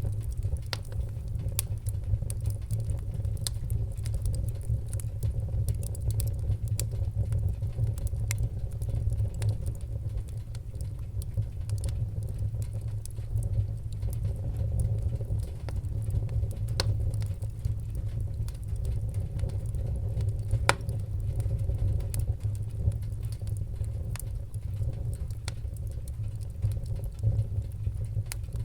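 Fire crackling: a steady low rumble of flames with scattered sharp pops and snaps, one louder pop about two-thirds of the way through.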